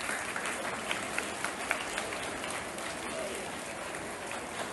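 Audience of schoolchildren applauding, a steady clapping with a few sharper claps standing out in the first couple of seconds.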